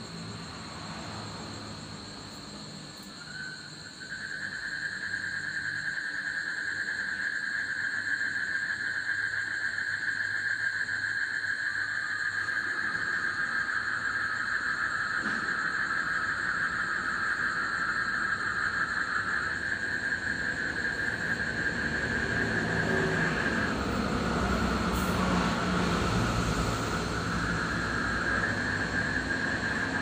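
Frogs calling in a long, unbroken trill that starts about four seconds in. A second, lower trill joins for a while in the middle. A steady high-pitched whine runs underneath, and the faint low rumble of passing traffic rises near the end.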